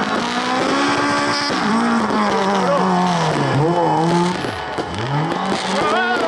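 Rally car engine revving hard through a sliding corner. The revs hold high at first, then drop and climb several times as the driver works the throttle, with a deep dip just before five seconds and a quick rise after it.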